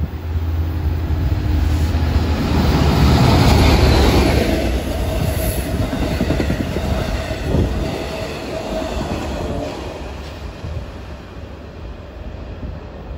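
An LIRR diesel locomotive hauling bilevel passenger coaches passes through the station at speed. The sound is loudest as the locomotive goes by about three to four seconds in, then the coaches rumble and clatter past and slowly fade. A steady wheel squeal runs under the coaches for a few seconds.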